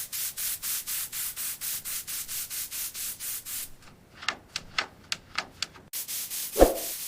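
Rhythmic abrasive scrubbing on rusty metal, a steady run of strokes about four a second, as in sanding or rust removal. It gives way to lighter scattered scrapes and ticks, then one loud knock near the end.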